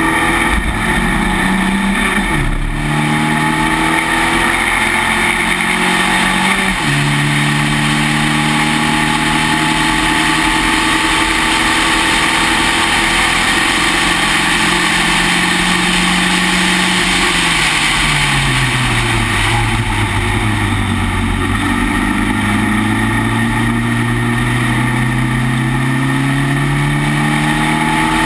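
Spec Racer Ford's engine running at racing speed, heard from on board over wind and road noise. The revs hold fairly level for the first stretch, fall away about seventeen seconds in as the car comes off the throttle, then climb steadily again under acceleration over the last eight seconds.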